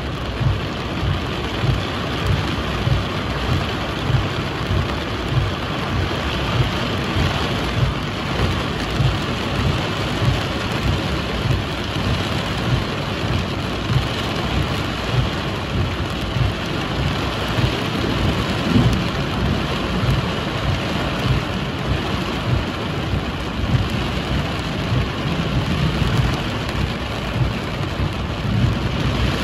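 Torrential cloudburst rain pouring steadily in a loud, even hiss, with strong gusts of wind buffeting the microphone in low, irregular rumbles.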